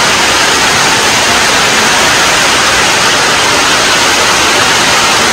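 Heavy rain pouring down steadily on foliage and open water: a loud, even hiss.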